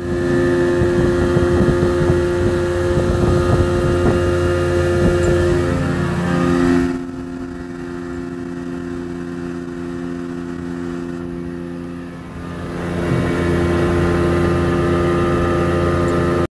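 Mercury 50 outboard motor pushing the boat at speed, running steadily. About seven seconds in it drops to a lower, quieter pitch as the throttle comes back, and about thirteen seconds in it rises again to the full cruising pitch.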